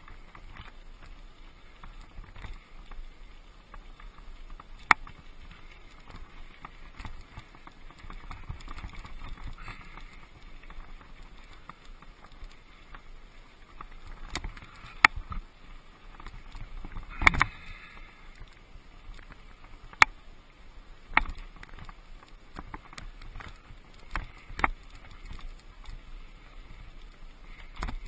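Mountain bike rolling over a rocky desert dirt and gravel trail, tyres rumbling steadily, with about six sharp knocks and rattles as the bike jolts over bumps, the loudest about 17 seconds in.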